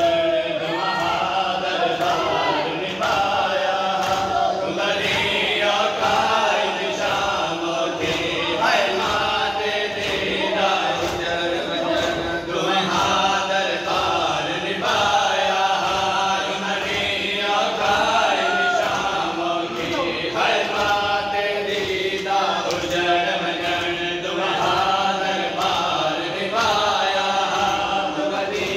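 Men chanting a Muharram mourning lament (noha) together in repeated phrases, over a steady rhythm of open-handed slaps on bare chests (matam).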